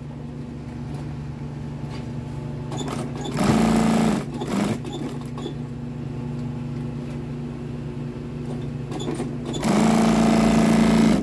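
Juki industrial single-needle sewing machine stitching a seat upholstery panel: its motor hums steadily, and it runs at speed in two bursts, a short one about three and a half seconds in and a longer one near the end, with a few brief stitches in between.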